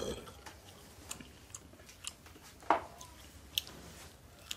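Elderly man chewing a mouthful of chicken biryani, with wet mouth clicks and lip smacks, the loudest a little under three seconds in.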